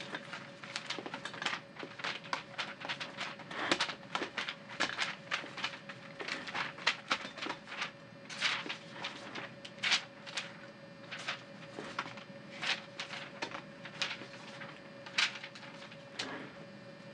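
Sheets of paper rustling and shuffling as they are handled at a desk, in irregular crinkles and flaps, thick at first and sparser later, over a steady faint hum.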